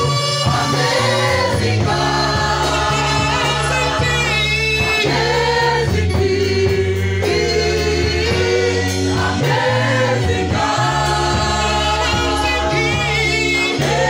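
A church congregation singing a gospel worship song together, backed by a live band, with a bass guitar holding low notes that change every second or two.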